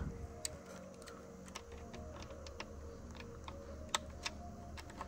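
Faint, irregular small clicks and taps of metal tweezers working a small screw out of a steering wheel's centre trim.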